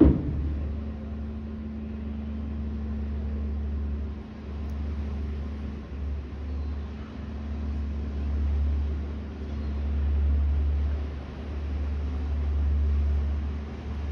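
Low rumble that swells and fades every couple of seconds, typical of wind buffeting a phone microphone, over a faint steady drone from the approaching harbour ferry Christopher Stannix. A sharp knock right at the start is the loudest sound.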